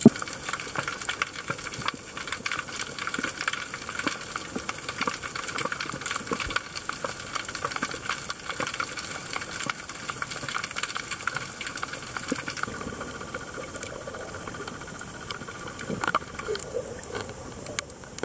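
Underwater reef noise through the camera: dense fast crackling clicks over a steady hiss, with a few faint low tones near the end.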